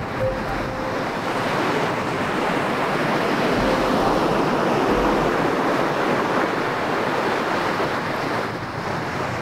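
Surf breaking and washing up a sandy beach: a steady rushing that swells louder through the middle.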